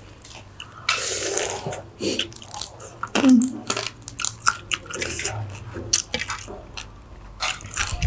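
Close-up crackling, snapping and wet squelching as cooked prawn shells are pulled apart and peeled by hand, with some biting and chewing.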